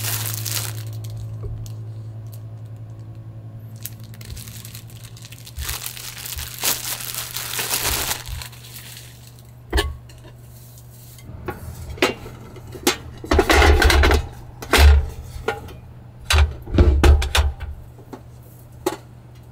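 Dishes and utensils being handled: scattered clinks and knocks with some rustling, and a cluster of louder clattering knocks about two-thirds of the way through, over a steady low hum.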